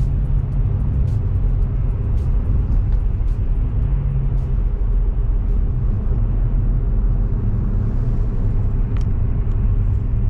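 Steady low rumble of a car's engine and tyres on the road, heard from inside the cabin while driving in city traffic, with scattered faint ticks.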